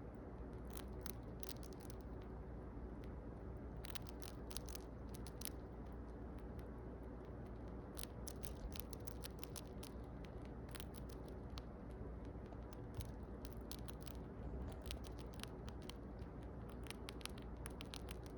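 Pet rat crunching a hard treat: runs of quick, tiny crisp clicks, like a tiny typewriter, each lasting a second or two with pauses between, over a steady low hum.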